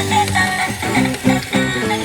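Background music: an upbeat tune of plucked notes, guitar-like, with a steady rhythm.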